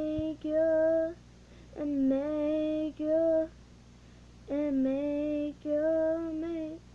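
A teenage girl singing unaccompanied: three short phrases of held notes with brief pauses between them.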